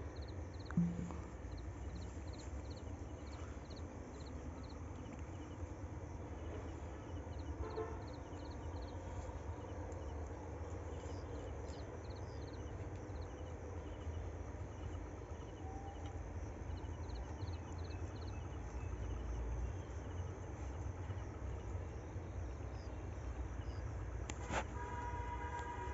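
Night-time rural ambience: insects chirping in short, rapid pulse trains over a steady low rumble. Near the end a click is followed by a steady pitched tone.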